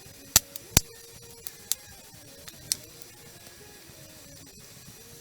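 Firewood campfire crackling, with a handful of sharp pops in the first three seconds, two of them loud.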